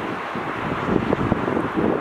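Wind buffeting the microphone in irregular gusts.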